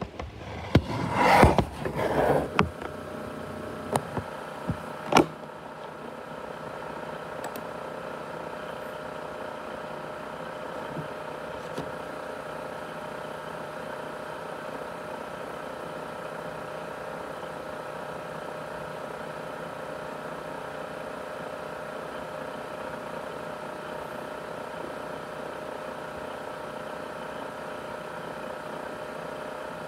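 Handling bumps and rustles for the first few seconds, with two sharp clicks, then an ASUS X543UA laptop's cooling fan running steadily at high speed: an even whir with several steady whining tones, the 'jet engine' noise of a fan running flat out.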